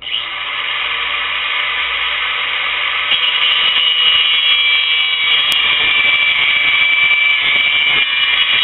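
Cut-off tool's abrasive wheel cutting into the metal housing of a dishwasher motor: a loud, high-pitched screech that starts suddenly and gets louder about three seconds in.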